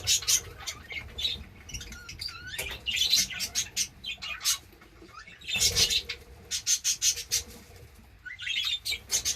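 A flock of budgerigars chirping and chattering in quick clusters of sharp, high calls, with short pauses between the clusters.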